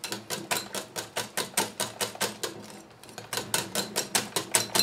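Wire whisk beating a wet batter of butter, condensed milk and eggs in a glass bowl, clicking against the bowl about six times a second, with a brief slackening about halfway through.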